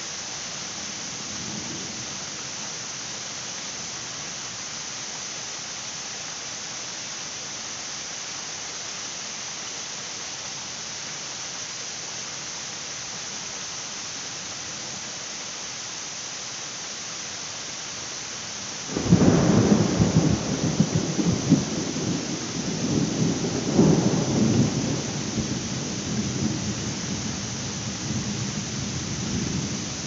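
Steady heavy rain hissing down. About two-thirds of the way in, a thunderclap breaks in suddenly and rumbles on, swells again a few seconds later, and slowly fades.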